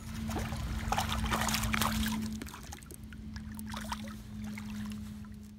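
A hooked bluegill splashing and thrashing at the water's surface beside the boat as it is reeled in: many short, irregular splashes. A steady low hum runs underneath.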